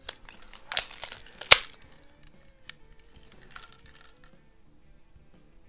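Spring-piston BB pistol being cocked and handled: a few metallic clicks, the loudest a sharp snap about a second and a half in as the action is latched, then a couple of faint ticks.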